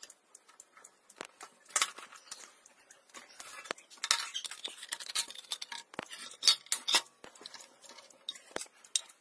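Scissors cutting into a thin metal drink can, with scattered sharp clicks and clinks of tools against the metal and a denser stretch of crackling about four seconds in.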